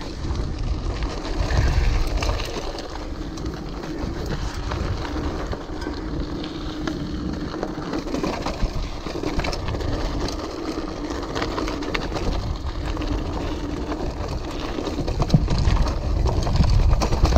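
Orbea Alma mountain bike being ridden over a rough, rocky trail: steady tyre noise on rock and gravel with scattered clicks and rattles from the bike, under a heavy rumble of wind on the microphone. The rattling grows rougher near the end.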